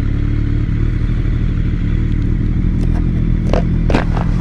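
BMW motorcycle engine running steadily, heard from the rider's helmet camera, with a few short clicks near the end.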